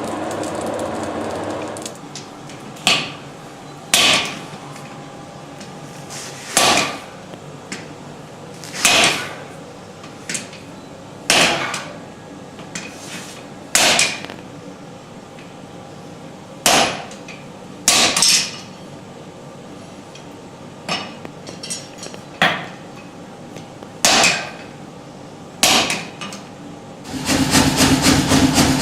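Hand hammer striking hot stainless steel on an anvil: about a dozen single blows, each with a short ring, spaced one to three seconds apart. Near the end a machine starts up with a loud, fast, even pounding.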